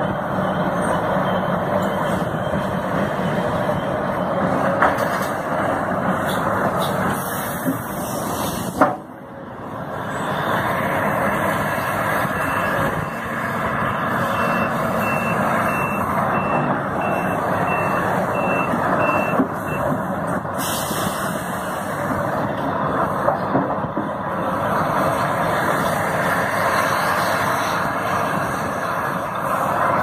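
Heavy earthmoving machinery at work: a large hydraulic excavator's diesel engine running with a steady, noisy rumble. A backup alarm beeps evenly for several seconds in the middle. A sharp click and a brief drop in level come about nine seconds in.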